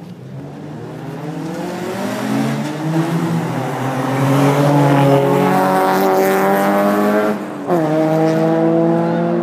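Car engine accelerating hard, its pitch climbing steadily as it gets louder, with a quick drop about seven and a half seconds in as it shifts gear, then climbing again.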